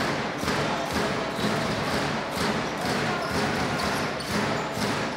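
Basketball dribbled on a hardwood court, about two bounces a second, over the steady noise of an arena crowd.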